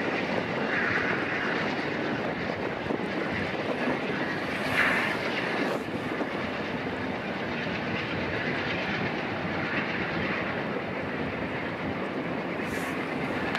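GE P42DC diesel locomotive pulling a passenger train away, its engine and the train's wheels making a steady noise.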